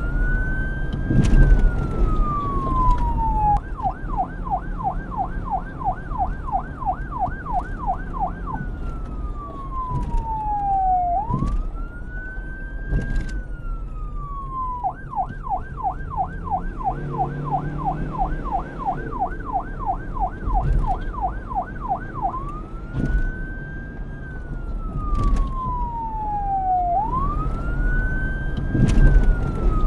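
Police car's electronic siren switching between a slow rising-and-falling wail and a fast yelp of about four to five cycles a second, twice over, with a low rumble of wind and traffic underneath.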